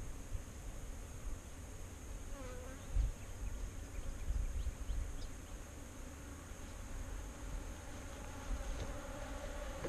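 Honey bees buzzing as they fly around the hive. One passes close with a rising-and-falling hum about two and a half seconds in, and the hum grows stronger near the end. Gusts of wind rumble on the microphone.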